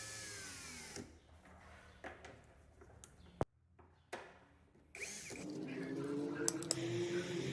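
A small electric motor, like a power drill, whirs and winds down in pitch, stopping about a second in. Quieter clicks follow, with one sharp click about three and a half seconds in, and a louder mixed clatter starts near the end.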